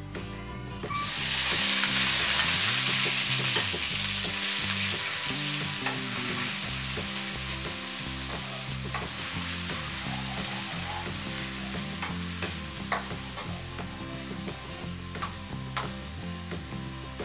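Sliced onions hitting hot oil in a steel wok and sizzling, loudest just after they go in about a second in and slowly dying down. Later a metal spoon clinks and scrapes against the wok as the onions are stirred.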